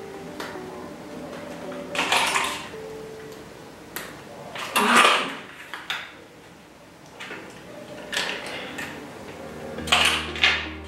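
Handling noises at a sewing table: about seven short clatters and rustles as the clips and the synthetic-leather clutch piece are picked up and set down, the loudest about five seconds in. Faint background music runs underneath.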